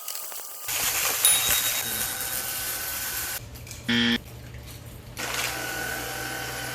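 Miuzzy cordless stick vacuum running with a steady whine while it sucks up hard debris like broken glass and metal bits. It goes quiet about three and a half seconds in, gives a short electronic beep, and starts running again about five seconds in.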